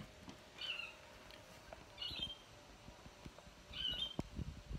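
A bird in the garden gives three short, high chirps about a second and a half apart. Near the end there are several low knocks as the camera is handled and tilted down.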